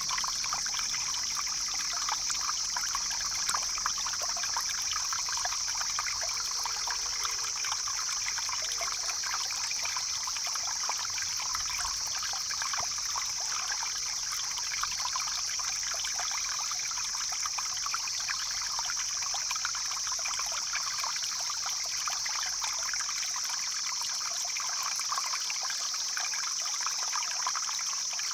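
Mountain stream flowing and splashing steadily over rocks, with a steady high-pitched hiss over it.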